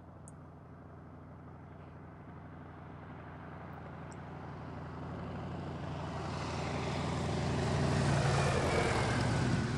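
Engine and propeller of a Fokker D.VIII monoplane in flight, a steady drone growing steadily louder as the plane approaches. It is loudest near the end as it passes low and close, with a slight drop in pitch.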